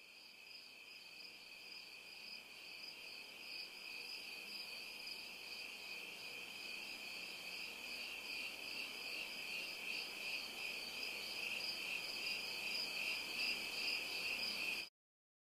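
Crickets chirping in a steady, high-pitched trill that grows gradually louder and cuts off suddenly near the end.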